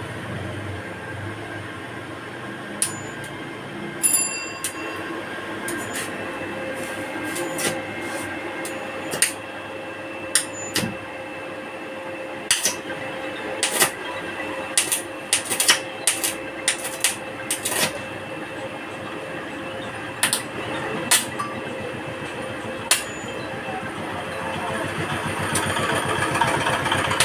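Stick (arc) welding on a welding machine set to about 84 amps: a steady sizzling hiss with a faint hum, broken by irregular sharp crackling pops.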